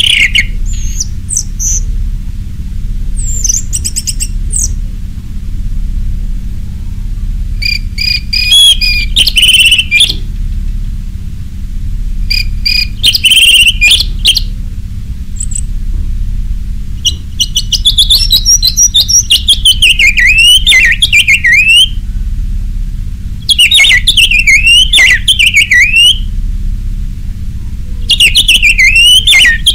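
Caged orange-headed thrush (anis merah) singing loudly in full voice, in repeated bouts of rapid whistled, warbling phrases with sweeping notes. The longest bout comes a little past the middle. A steady low hum runs underneath.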